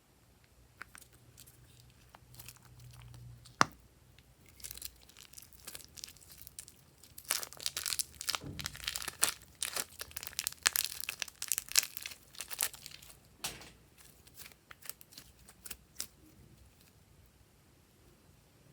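Slime being handled, giving sharp crackles and pops: scattered clicks, one loud snap about three and a half seconds in, then a dense run of crackling in the middle that thins out after about sixteen seconds.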